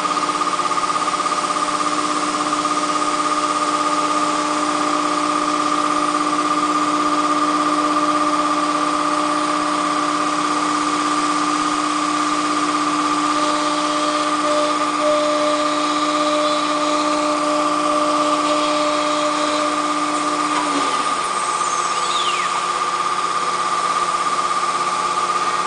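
ATC CNC router running with its spindle spinning as the dust-hooded head works a board: a steady high whine over even machine noise, with a lower hum that stops a few seconds before the end.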